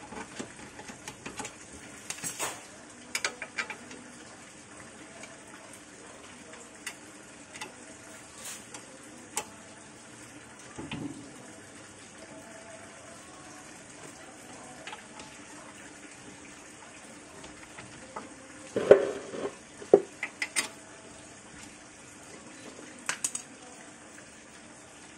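Scattered light metallic clicks and clinks of hand tools and bolts on a car's front suspension strut and its brake-hose bracket. A louder cluster of knocks comes about three-quarters of the way through.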